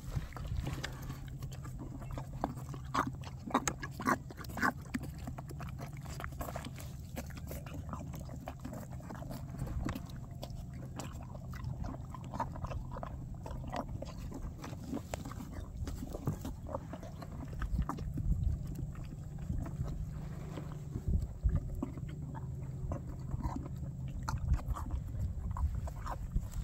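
A half-Arabian, half-Tennessee Walker filly foal slurping and chewing wet feed from a plastic bucket: a steady run of irregular wet smacks and mouth clicks.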